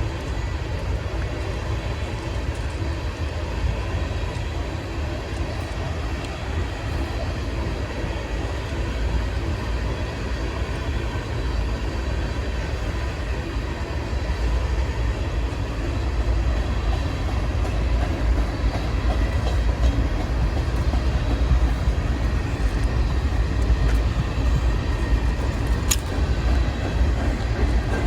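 Norfolk Southern manifest freight train rolling slowly past: a steady low rumble of the cars on the rails that grows louder about halfway through, with a single sharp click near the end.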